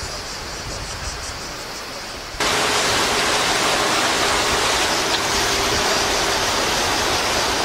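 Steady rush of water and wind aboard a solar catamaran moving through the water, which starts suddenly about two and a half seconds in; before that, a quieter steady hiss with a thin high buzz.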